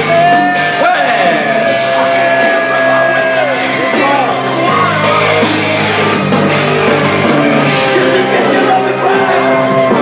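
Rock music with singing, including one long held sung note in the first few seconds.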